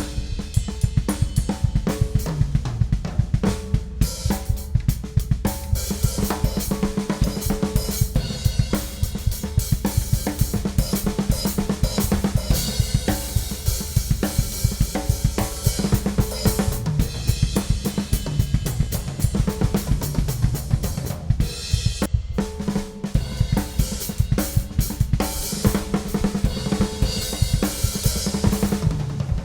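Ludwig Classic Maple drum kit played continuously in a rock groove and fills: bass drum, toms, a metal Supraphonic snare, hi-hat, ride and crash cymbals, with dense strokes and cymbal wash throughout.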